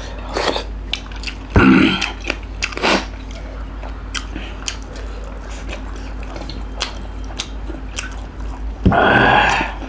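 Rapid eating of duck curry, rice and fried chicken wings: biting and chewing, with many short wet smacks and clicks. There is a louder burst of noise about a second and a half in and another near the end.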